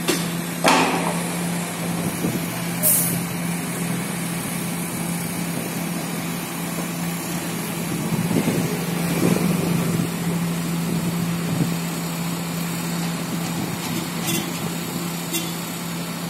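Construction-site noise: heavy machinery with a steady engine hum, a few sharp metallic clanks and a brief hiss about three seconds in.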